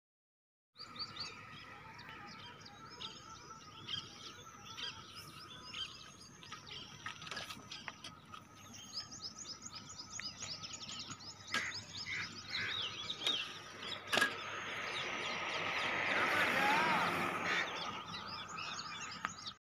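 Many small birds chirping continuously outdoors, with a steady faint high tone beneath. A few sharp clicks, and near the end a broad swell of noise rises and fades over a few seconds.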